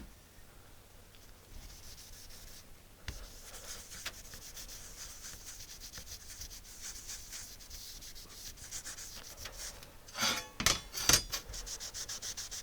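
Cloth rubbing over the steel RF shield of an Atari 65XE keyboard, wiping on WD-40 after the rust has been filed off: a soft, steady scratchy rubbing. A few louder knocks and clatters near the end as the metal is handled.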